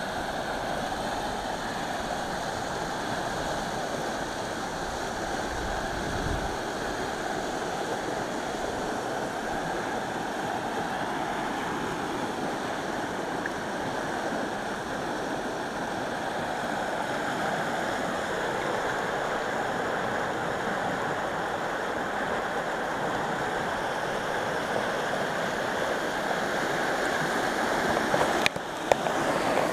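Fast, turbulent water rushing steadily over rapids in the outflow channel below a hydroelectric power plant. The rushing breaks briefly near the end and a couple of sharp clicks are heard.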